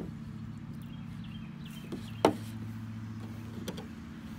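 Sharp knocks on a plastic folding table as a live snake is pinned and struck against it: one right at the start and a louder one about two seconds in, with fainter taps between, over a steady low hum.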